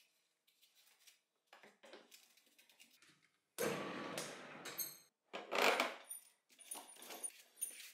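Handling noises as a sandpaper-sleeved sanding drum is fitted onto a homemade plywood lathe's threaded metal shaft: light knocks and clicks, two louder scraping rubs starting about three and a half and five and a half seconds in, and faint metallic clinks near the end.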